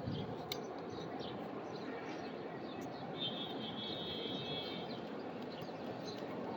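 Wild birds outdoors: scattered short high chirps, with one buzzy trill lasting about a second and a half near the middle, over a steady low background hum.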